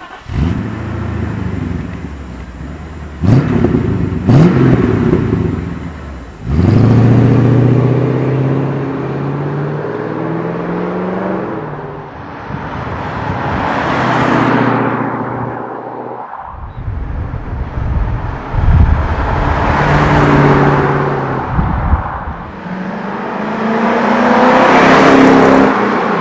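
Mercedes-Benz W126 500SEL's 5.0-litre V8 through a loud stainless steel aftermarket exhaust. It idles, is blipped twice, and then pulls away loudly. After that come drive-bys, the exhaust note swelling as the car nears and fading as it passes.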